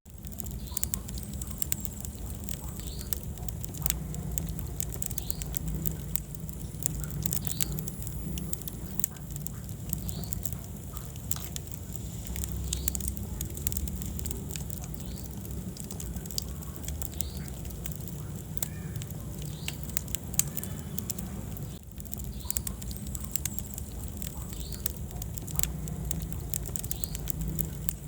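Wood fire in a fireplace crackling, with frequent sharp pops over a low steady rumble of burning, and now and then a short high squeak.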